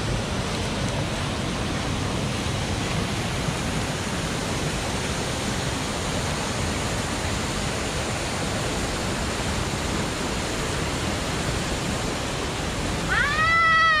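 Steady, even rushing of a river's waterfall and rapids, running high with rainy-season water.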